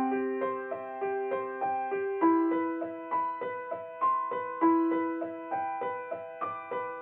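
Background music: a piano playing a gentle, steadily repeating figure of notes, about two notes a second.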